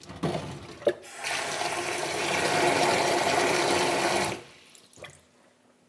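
Kitchen tap running hard into a stainless-steel sink, splashing over a plastic bottle, for about three seconds and then shut off abruptly: filling the sink with cold water for an ice bath. A couple of short knocks come before it as things are moved about in the sink.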